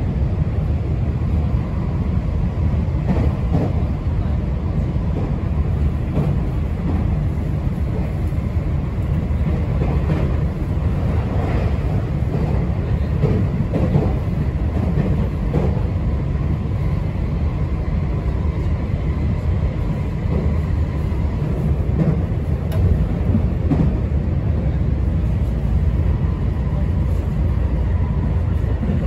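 JR West 225 series 5000 subseries electric train running at speed, heard from inside a passenger car: a steady low rumble of wheels on rail with scattered faint clicks. A faint steady whine comes up in the second half.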